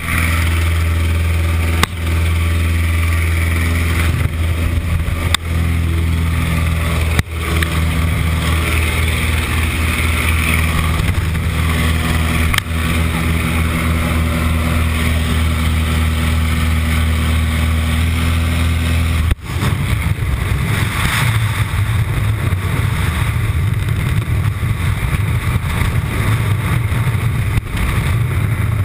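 Aircraft engine droning steadily through the open jump door. About two-thirds of the way through it gives way suddenly to a wind rush on the helmet camera's microphone as the skydivers fall free.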